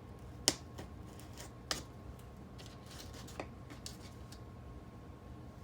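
Light clicks and taps of small tools and model track pieces being handled while model railroad switches are torn out. Three clicks stand out, the sharpest about half a second in, over a faint steady hum.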